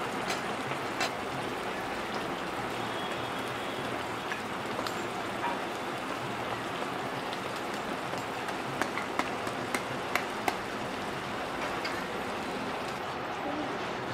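Pav bhaji bubbling and sizzling on a hot griddle (tawa) with butter melting in, a steady crackling hiss. Scattered sharp clicks over it, several close together about nine to ten seconds in.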